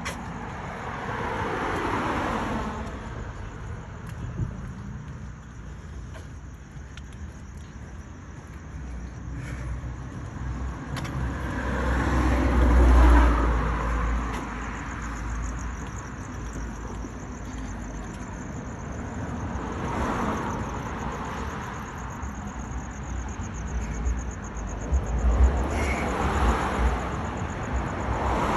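Street traffic: about four cars pass one after another, each swelling and fading away, the loudest about halfway through with a low rumble.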